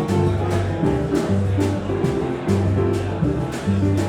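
Small jazz combo playing live: bass notes, chords, and a steady pattern of cymbal strokes from the drum kit.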